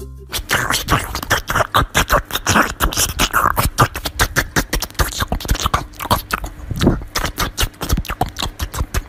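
Small white Pomeranian biting and chewing a slice of watermelon: a quick, uneven run of crunching bites that goes on without pause.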